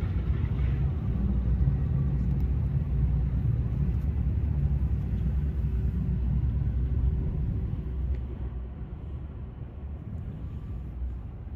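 Low, steady outdoor rumble with no siren tone standing out; it drops in level about eight seconds in.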